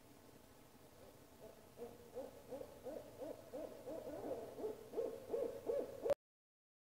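Owl hooting: a quick run of short hoots, about three a second, growing louder, then cut off suddenly.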